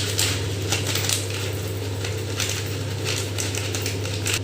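Black peppercorns being pounded, a run of irregular sharp knocks and crunches, over a steady low hum.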